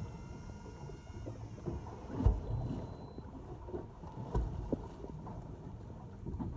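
Low rumble of choppy water and wind around a small fishing boat, with irregular dull thumps, the loudest about two seconds and four and a half seconds in.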